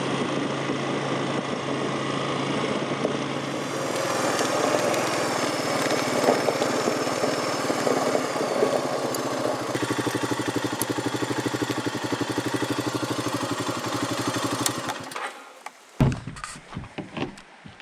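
ATV engine running steadily while riding down a dirt road. About fifteen seconds in, the engine sound gives way to a few knocks and clatters as plastic water jugs are handled.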